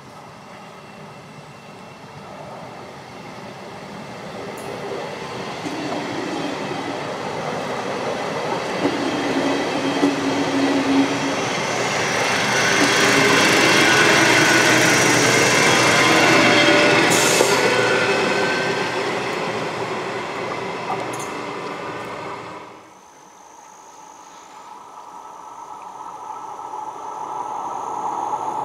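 Electric multiple unit passing on an electrified line: its rail noise builds steadily, is loudest as the train goes past about halfway through, and then fades. The sound cuts off abruptly about 23 seconds in, and a fresh rail rumble starts building again near the end.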